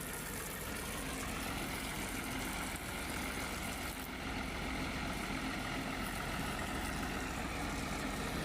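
An engine running steadily at a constant speed, with a few steady whining tones above its low rumble.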